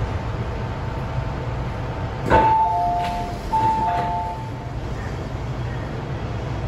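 Onboard two-tone chime of an MTR M-train sounding twice, a higher note then a lower one each time, over the steady low rumble of the train running; the chime that comes before a station announcement.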